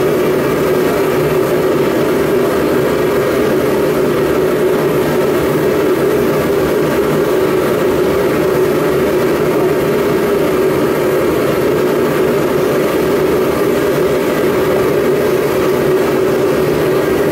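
Forge burner running: a loud, steady rush with a constant hum in it, unchanging throughout.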